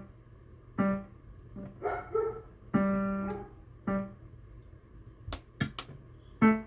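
AODSK S-200 digital piano playing single notes one after another with its built-in sustain effect switched on, some notes ringing on for about a second. A few sharp clicks come just past the middle, and the loudest note is struck near the end.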